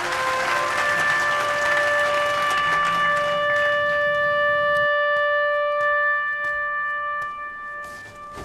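Background film music, a brass chord held steadily, over a crowd applauding. The applause dies away about five seconds in, leaving a few scattered claps under the held chord.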